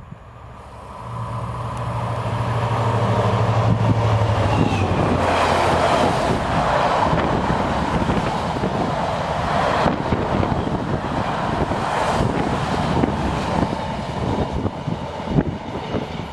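DB Schenker Class 67 diesel locomotive (two-stroke V12) running through the station at speed with a freight train, its engine note growing louder as it approaches. From about five seconds in, a long rake of loaded box wagons rumbles and clatters past on the rails.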